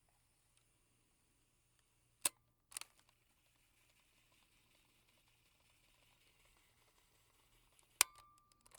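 Cassette deck mechanism clicking: a sharp key click, then a double clatter half a second later, faint tape hiss for about five seconds, then another sharp click and a few small clicks near the end.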